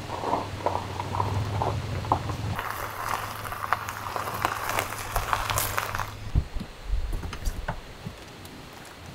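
Toyota Land Cruiser Prado SUV rolling slowly over gravel, its engine running low under the crunch and crackle of the tyres on stones, loudest from about a third of the way in. The rolling stops about two-thirds through, followed by a few dull thuds.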